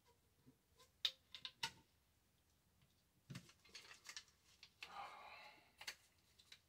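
Quiet, sparse clicks and light knocks of Remington 870 Tac-14 shotgun parts being handled during reassembly, with a duller knock a little past three seconds in and a rustle lasting about a second near the five-second mark.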